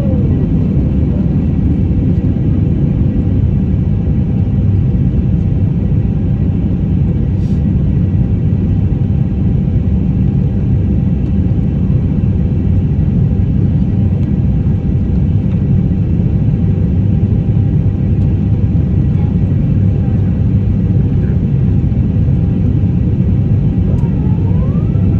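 Steady low rumble of an airliner's jet engines and airflow as heard inside the passenger cabin, climbing out after take-off.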